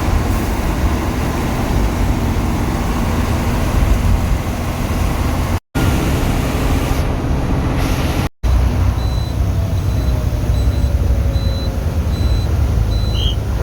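Bus engine and road noise: a loud, steady low rumble while travelling, with a faint high beep repeating evenly in the second half.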